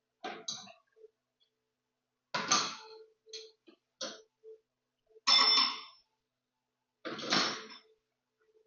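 Metal tools and parts clanking and clinking, about six separate strikes with a short ring after some, the loudest a little past five seconds in.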